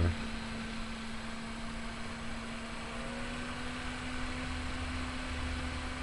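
Scythe Ultra Kaze 120 x 38 mm 3000 RPM sleeve-bearing case fan running: a steady rush of air over a motor hum. It is being turned up towards full 12-volt speed on a fan controller, and its hum grows stronger and slightly higher about halfway through.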